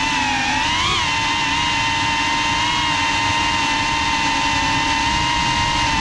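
Geprc FPV quadcopter's brushless motors and propellers, heard from the GoPro on board: a steady multi-tone whine over a rush of prop wash. The pitch climbs and falls once about a second in as the throttle is pushed, then holds level.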